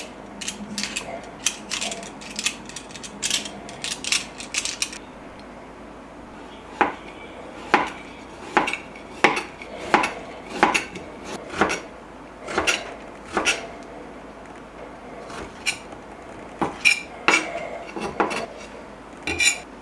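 Kitchen utensils clinking and knocking against dishes. A run of quick clinks comes first, then a steady series of knocks about once a second, then a few more clinks near the end.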